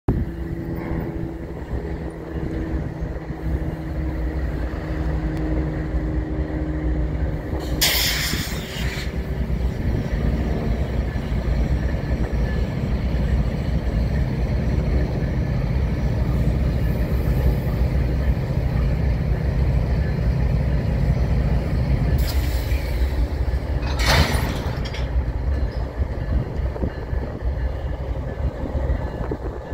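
Diesel freight locomotives running with a steady deep rumble as they move slowly in to couple to the train. Two loud hisses of compressed air cut through, about eight seconds in and again around twenty-three seconds in.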